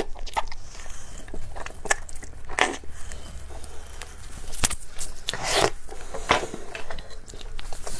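Close-miked mouth sounds of biting into and tugging at a giant chewy snow-skin mochi (xuemeiniang): scattered wet smacks and sticky clicks as the stretchy dough pulls away from the lips.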